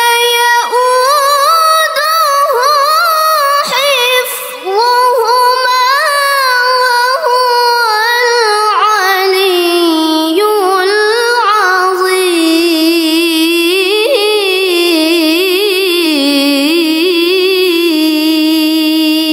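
A young woman's solo voice reciting the Quran in melodic tilawah style, with ornamented, gliding runs and then a long held, slightly wavering line near the end.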